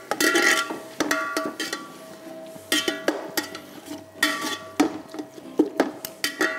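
Perforated metal ladle scraping and knocking against a metal pot as minced meat is stirred and mixed into the masala. The knocks come irregularly, several with a brief metallic ring.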